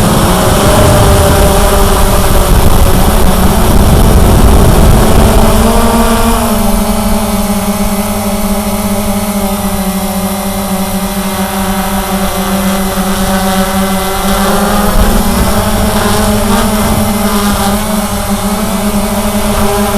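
Cheerson CX-20 quadcopter's brushless motors and propellers whirring in flight: a loud, steady multi-tone hum whose pitch drops about six seconds in and climbs again near the end, with low rumbling noise strongest in the first few seconds.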